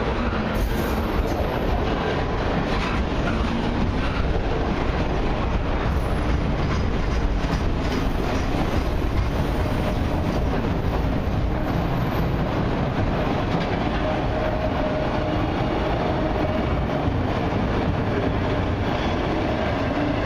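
Freight cars of a long CN mixed train, bulkhead flatcars and then autoracks, rolling past on steel wheels. The rail noise runs steady at an even level throughout.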